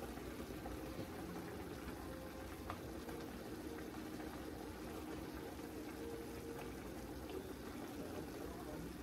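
Pepper steak with green peppers, onions and mushrooms simmering in a beef-bouillon sauce in an uncovered cast-iron skillet, a steady bubbling as the sauce is spooned over the meat. A single light click comes near three seconds in.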